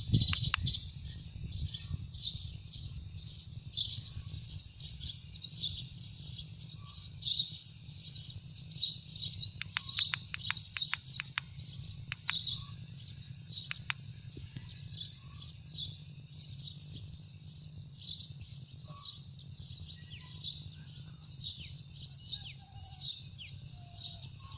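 Sparrow-trapping lure speaker playing a looped recording of young sparrow chirps, an even run of short high chirps about two a second, used to call a flock down to glue-stick traps.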